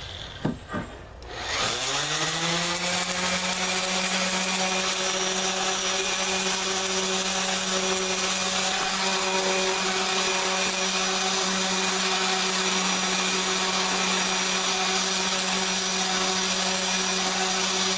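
Electric sander switched on, its motor spinning up about a second and a half in and then running steadily, sanding the table-saw-chamfered edge of a ripped decking board to match the factory rounded edge.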